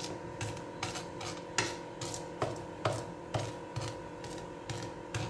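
Dry, butter-coated vermicelli strands rustling and crunching as a hand presses and pats them flat into a non-stick frying pan, a short scratchy stroke about twice a second, over a faint steady hum.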